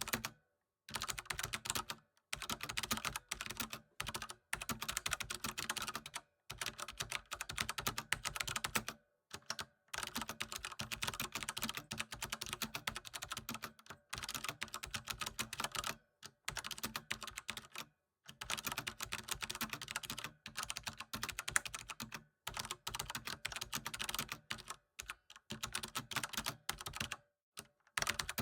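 Computer keyboard typing: fast runs of key clicks lasting a few seconds each, broken by short pauses.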